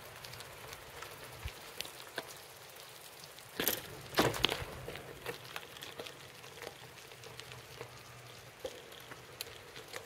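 Loose gravel crunching and crackling steadily underfoot or under wheels on a forest track, with a couple of louder knocks about four seconds in.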